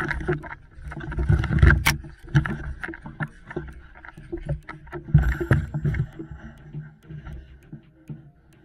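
Handling noise from a camera carried on the move: rustling, many small clicks and knocks, and heavy low thumps about a second in and again about five seconds in, as the player pushes through brush and branches.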